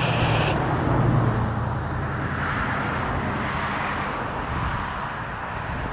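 An engine running steadily under outdoor background noise, its low hum strongest in the first second or two.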